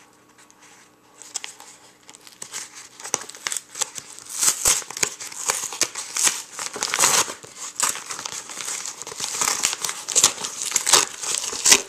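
Yellow padded kraft-paper mailer being torn open by hand, its paper crinkling and crackling in a dense run of small rustles that starts about a second and a half in and grows louder.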